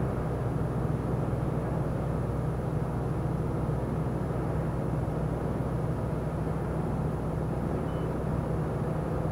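Steady drone of a lorry cruising on a motorway, heard from the cab: a low, even engine hum with tyre and road noise, no change in speed.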